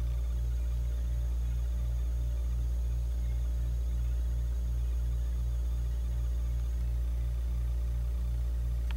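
Steady low hum with a regular pulsing a few times a second above it.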